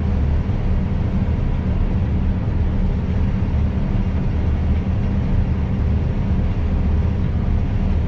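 Combine harvester running while cutting, heard from inside the cab: a steady low drone of engine and threshing machinery with a few constant tones above it.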